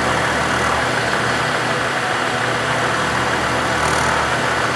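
Milling machine running, its end mill climb-milling the side of a laminated wood block; a steady machine whir mixed with the noise of the cutter in the wood.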